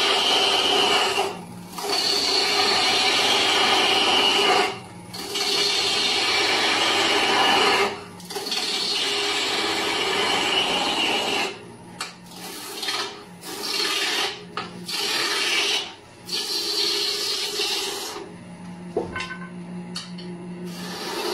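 A turning tool cutting a spinning wood blank on a lathe: long cuts of scraping noise broken by brief pauses, then shorter cuts about halfway through. Near the end the tool is off the wood and the lathe runs with a low hum, with a single click.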